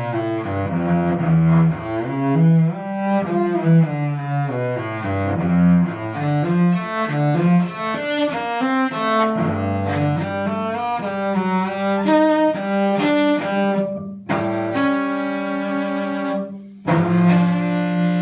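Early 19th-century English cello played with the bow through a melodic passage of continually changing notes, with a quicker run in the middle. The tone is warm, and there are two brief breaks between phrases near the end.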